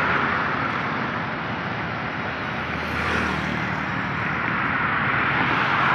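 Steady road traffic on a multi-lane highway: cars and motorbikes passing, their tyres and engines blending into a continuous hiss, swelling slightly about halfway through.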